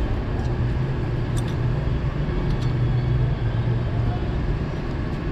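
A steady low hum of workshop background noise, with a few faint metallic clicks.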